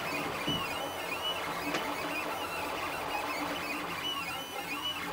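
LulzBot TAZ 3D printer running a print: its stepper motors whine in quick runs of short notes that rise and fall in pitch as the print head moves back and forth.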